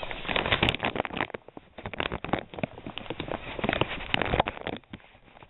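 Hands working at a small shipping package to open it: irregular clicks, scratches and rustles of handling, with short pauses.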